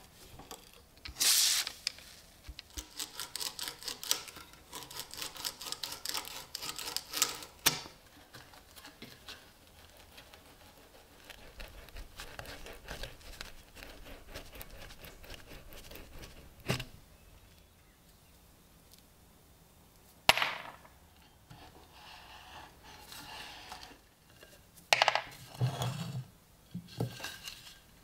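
Clicking, scraping and knocking of metal and wood in a bench vise as the wooden base of a vintage tobacco cutter is clamped and worked on. A dense run of rapid clicks stops about eight seconds in, then a few sharp single knocks follow.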